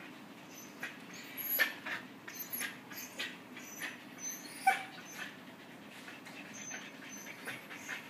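Siberian husky puppies whimpering and giving small yips, mixed with a scatter of short clicks and scuffs. The loudest is a sharp yip about four and a half seconds in.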